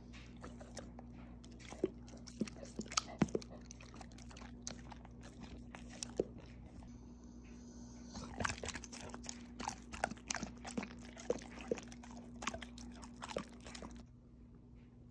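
Dogs licking and smacking at a soft pumpkin-and-yogurt mixture held out on a spoon: a run of short wet clicks and smacks, busiest in the second half.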